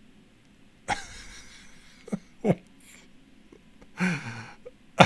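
A few short vocal sounds, each falling in pitch, starting suddenly about a second in, with the loudest near the middle.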